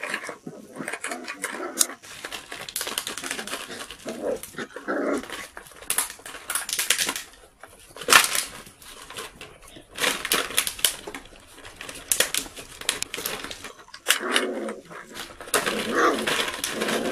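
Miniature poodle puppies playing, crackling and knocking an empty plastic bottle on paving stones, with small puppy barks and whimpers now and then.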